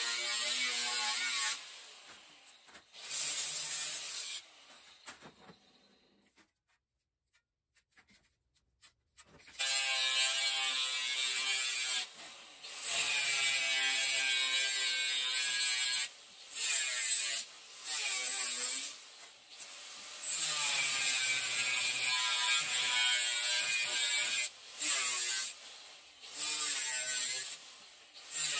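Makita angle grinder with a thin cut-off wheel cutting through sheet steel in a series of runs a few seconds long with short pauses between. The motor's whine sags as the wheel bites. About five seconds in it goes quiet for roughly four seconds before the cutting resumes.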